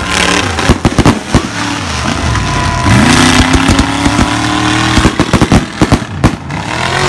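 Mega truck's engine running hard at high revs, its pitch rising about three seconds in. Two bursts of sharp cracks and pops come through, about a second in and again near the end.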